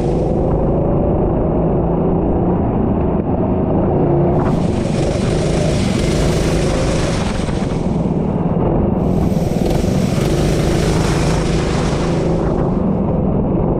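Vehicle engine running continuously at speed during track practice. A high hiss swells in twice for a few seconds over the engine.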